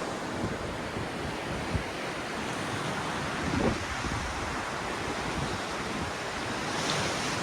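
Small surf washing steadily on the beach, with wind buffeting the microphone.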